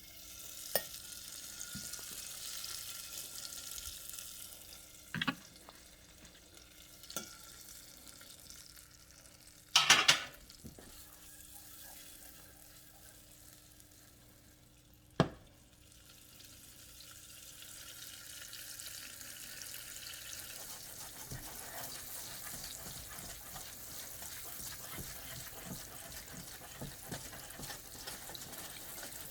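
Butter sizzling as it melts in a hot saucepan, with a few sharp knocks of the pan, the loudest about ten seconds in.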